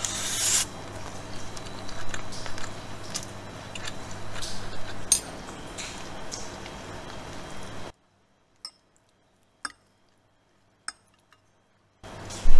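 Metal spoon and fork clinking and scraping on a ceramic plate, scattered clicks over a steady low hum. About eight seconds in the sound cuts off to near silence, broken by a few faint clicks.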